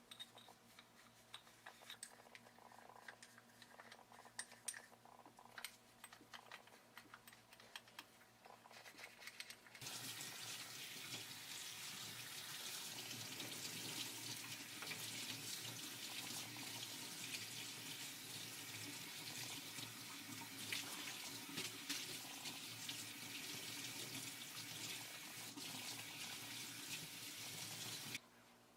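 Light scattered clicks and taps, then a tap turned on about ten seconds in, with water running steadily into a sink for some eighteen seconds before it cuts off suddenly near the end. This is typical of the disassembled rib cartilage dicer's parts being rinsed.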